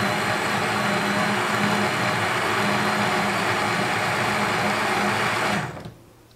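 Bosch VitaStyle Mixx2Go personal blender running steadily at full speed, blending a thick honey, oil and spice marinade, then switching off and running down about five and a half seconds in.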